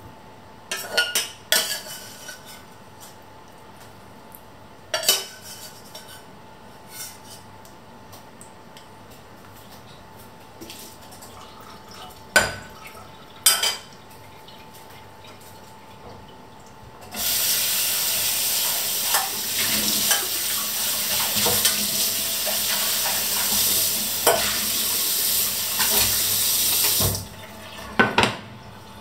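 Metal slotted spoon and stainless saucepan clinking against each other and the plate in a few sharp knocks. Then a loud, steady rushing hiss lasting about ten seconds, which starts and stops abruptly, followed by two more clinks.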